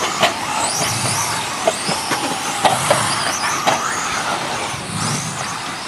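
1/10-scale RC truggies racing on a dirt track: several electric motor whines overlap, rising and falling in pitch as the trucks throttle up and off. Sharp clacks are scattered through it.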